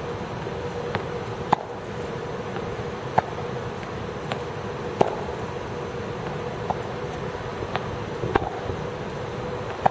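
Tennis balls being hit by rackets and bouncing on the court during a rally drill: sharp pops every second or two. A steady hum runs underneath.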